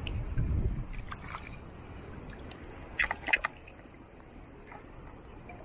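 Shallow water sloshing and trickling around a metal pole worked into it, with a low rush of moving water in the first second. A few sharp clicks come about a second in and again around three seconds in.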